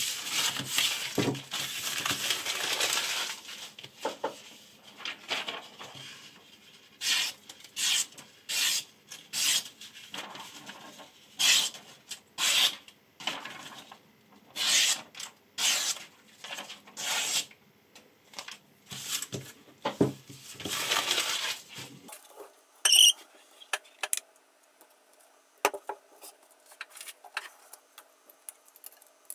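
A kitchen knife blade rubbed against a sharpening stone. It begins as a dense rasping run, then goes on in separate strokes about one a second that stop near the end. A short ringing clink follows, then a few faint ticks.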